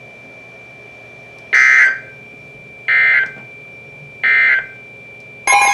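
NOAA Weather Radio EAS/SAME end-of-message data bursts: three short electronic buzzes about 1.4 seconds apart, signalling the end of the warning broadcast. A loud alert tone starts just before the end.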